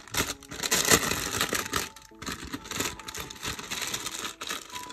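Clear plastic cellophane packaging crinkling in irregular crackles as a packet of paper tags is handled and drawn out of it by hand.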